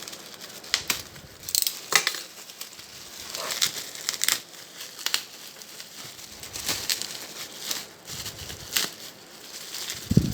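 Packaging crinkling and rustling in irregular bursts as it is handled and pulled open around a newly arrived mini water pump, with a soft low thump near the end.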